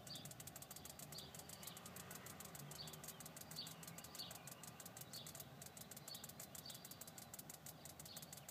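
Fuel injector clicking faintly and rapidly, about ten clicks a second, as it is pulsed by tapping its lead on a battery terminal to flush cleaning solution through it under pressure.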